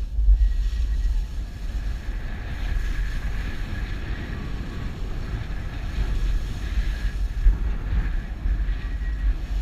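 Wind buffeting the microphone of a camera skiing downhill, a heavy uneven rumble, with the hiss and scrape of skis sliding over packed snow underneath.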